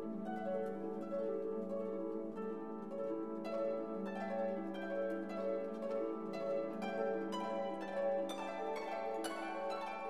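Background instrumental music: a quick run of short notes over a held low note.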